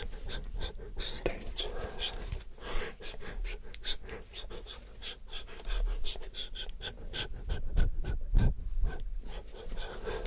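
Close-microphone ASMR whispering, breathy and unintelligible, mixed with many short, crisp clicks and taps in a quick, irregular run.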